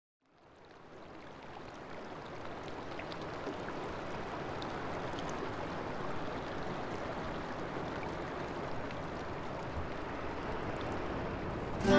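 Steady rush of flowing water, like a stream, fading in from silence over the first couple of seconds, with a few faint ticks in it. Acoustic guitar music starts right at the end.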